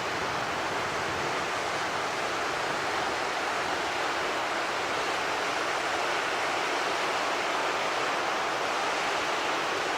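Ocean surf washing onto a beach, a steady, even hiss with no distinct wave breaks.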